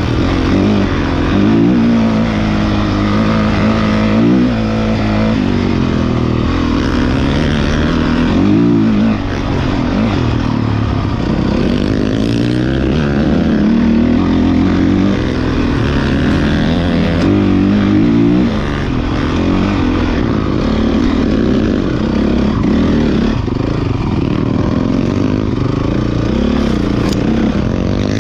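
Dirt bike engines running hard, their pitch rising and falling again and again as they rev up and drop back.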